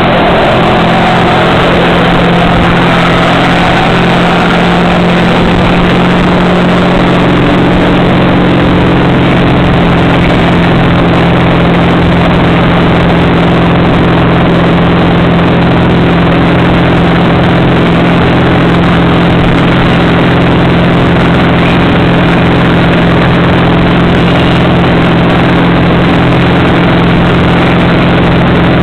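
Tow boat's engine running steadily at towing speed, a constant drone under loud rushing wind and water from the wake.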